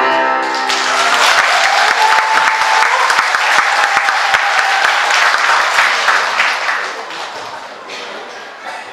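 A choir's final held chord cuts off and audience applause breaks out about half a second in, staying full for several seconds before thinning out near the end.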